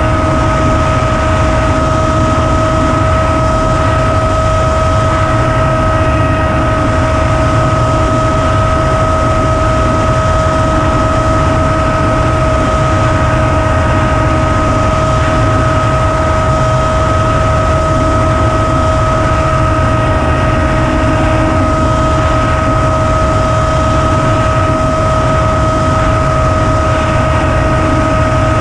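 Flinch FPV flying wing in flight, heard from its onboard camera: the motor and propeller hold one steady whine over loud wind rush.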